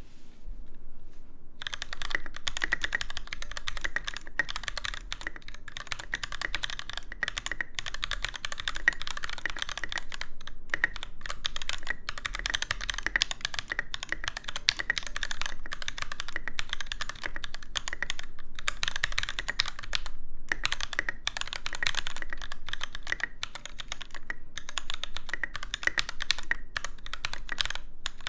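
Typing sound test on a NovelKeys NK65 Entry Edition mechanical keyboard with lightly lubed Gateron Yellow linear switches, a silicone case dampener and OEM-profile keycaps: rapid, continuous keystrokes starting about a second and a half in, with a few brief pauses.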